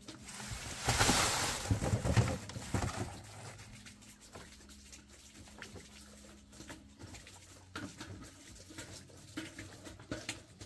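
Wet concrete sliding out of a tipped wheelbarrow and slumping into a pit: a loud rough rush and splatter lasting about two seconds, starting about a second in, then a few faint knocks.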